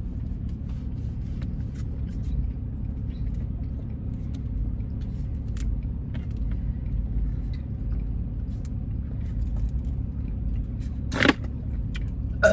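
Car engine idling, a steady low rumble heard inside the cabin, with scattered small clicks and a sharp crackle about 11 seconds in.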